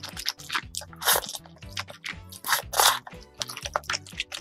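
Slurping and chewing of saucy Kimchi Jjapaguri instant cup noodles eaten close to the microphone. Two loud slurps stand out, about a second in and a longer one near three seconds, with smaller mouth sounds between, over soft background music.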